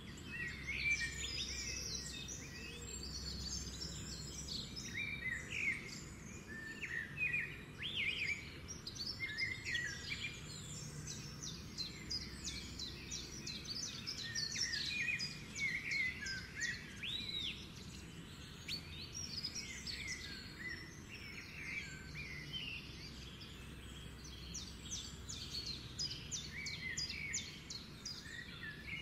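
Several small birds chirping and calling throughout, in quick runs of short notes and a few longer whistles, over a steady low rumble.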